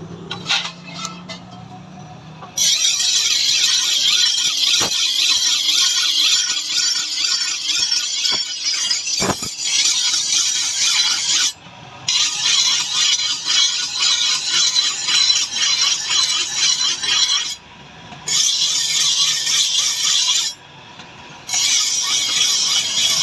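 A steel knife blade being sharpened against an abrasive: a loud, hissing scrape in long unbroken spells, stopping briefly three times, about 11, 17 and 20 seconds in.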